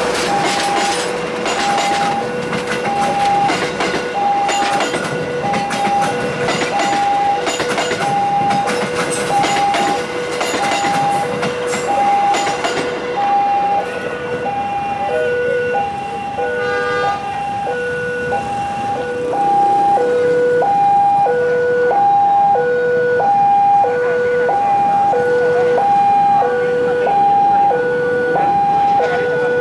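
Railway level-crossing warning alarm sounding a repeating two-note electronic ding-dong, about one cycle a second, without a break. For the first dozen seconds the wheels of a passing passenger train clatter over the rail joints, then that dies away and the alarm goes on alone.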